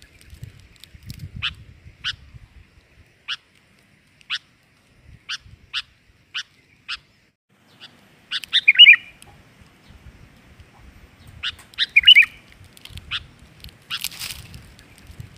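Sooty-headed bulbul calling: a string of short, sharp single call notes, broken twice by a loud bubbly, warbling song phrase a few seconds apart. A short rustling burst comes near the end.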